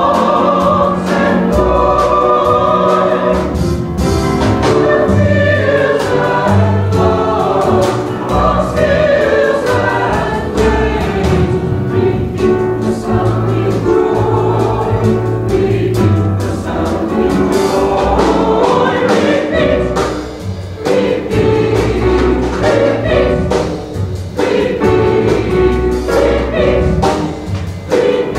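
Mixed church choir singing an anthem accompanied by piano, drum kit and upright bass.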